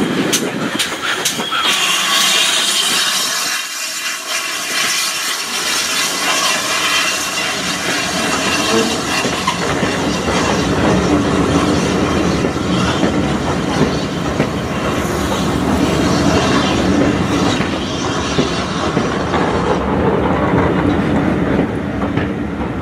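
GWR 4200-class 2-8-0 tank locomotive No. 4270 pulling a train out, with a run of sharp clicks in the first second or two, then its coaches rolling past with a steady rumble and wheels clicking over the rail joints.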